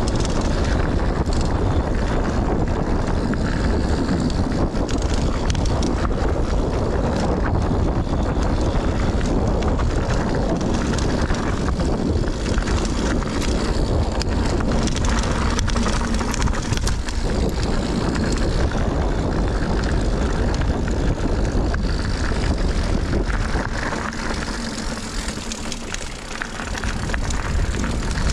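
Mountain bike descending a dirt trail heard from a GoPro on the rider: steady wind rush over the camera microphone mixed with tyre rumble and the rattle of the Scott Ransom 910's frame and drivetrain. The noise dips briefly near the end, then picks up again.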